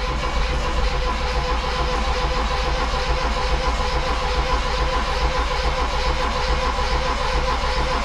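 Mitsubishi Minicab U42T kei truck's three-cylinder engine cranking on the starter motor without catching: a steady, rapid churning with a starter whine over it. It will not fire because there is no ignition spark, even with a new distributor cap and rotor fitted.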